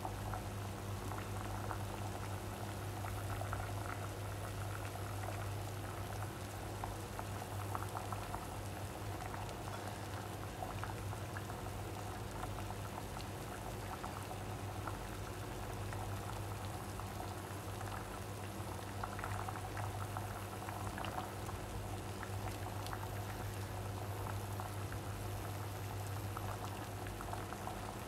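Stainless-steel pot of water at a rolling boil with sliced squash in it: steady bubbling and crackling, over a steady low hum.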